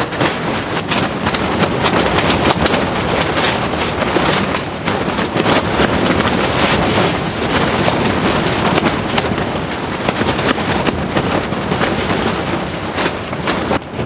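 Storm wind and heavy rain beating on a tent's fabric walls, heard from inside: a loud, continuous rush broken by many short slaps and rattles of the fabric.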